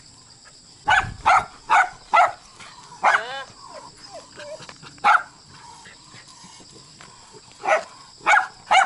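Dogs barking in short, sharp barks: a quick run of four about a second in, single barks around three and five seconds in, and three more close together near the end.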